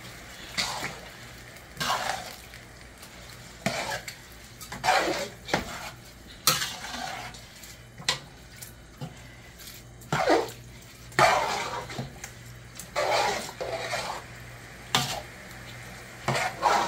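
A long metal spoon stirring rice into broth in a large metal cooking pot, scraping and clinking against the pot in irregular strokes about once a second.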